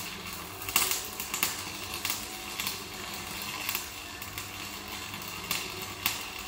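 Electric arc welding on steel bars: an irregular crackle of the arc with frequent sharp pops.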